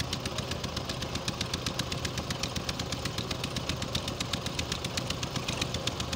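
Tractor's diesel engine running steadily with a rapid, even knocking beat.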